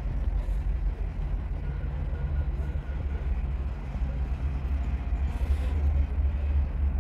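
Steady low background rumble, with no clear rhythm or pitch; a faint short hiss comes about five and a half seconds in.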